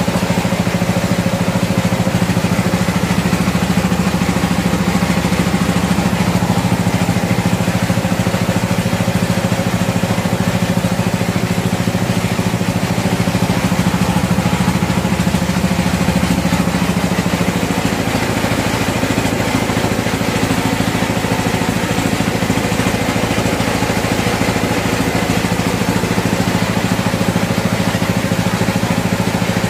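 Motor-driven grain mill running steadily: a constant mechanical hum and drone that holds at the same level throughout.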